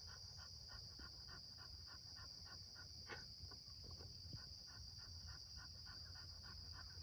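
A dog panting quickly and evenly, about three to four breaths a second, winded after exercise, over a steady high drone of insects.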